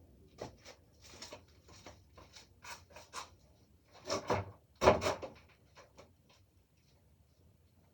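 A string of short knocks, clicks and rubbing, as of things being handled, the two loudest about four and five seconds in, then only a few faint ticks.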